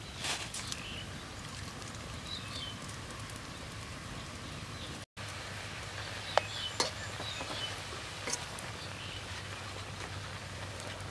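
Eel and vegetables frying in a metal wok over a wood fire: a steady sizzling hiss, with a few sharp clinks of a metal spatula against the wok a little past halfway, and faint bird chirps.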